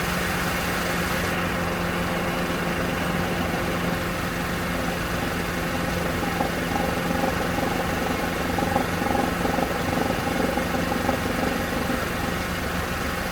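2007 Mercedes-Benz CLK 200 Kompressor's supercharged four-cylinder idling steadily in gear. About halfway through, an irregular knocking with an added drone comes in and fades again near the end. It is part of a knock that cycles every 10 seconds or so, cause undiagnosed.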